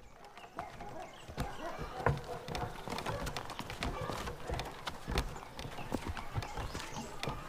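Street ambience: irregular clopping knocks, like footfalls or hooves, with indistinct voices in the background.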